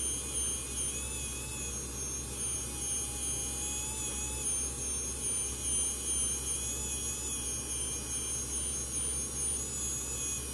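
Small electric feed motor of a handheld 3D printing pen whirring steadily as it pushes plastic filament through, a thin high whine that wavers slightly in pitch over a low hum.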